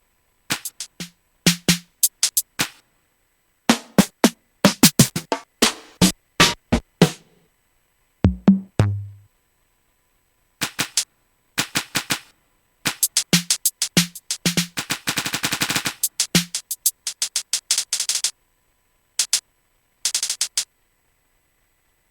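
Drum sounds from Native Instruments Maschine 2.0 played in short, irregular bursts rather than a steady groove: single sharp clicks and ticks, a low kick about eight seconds in, and a fast roll of rapid hits about two thirds of the way through, with silences between.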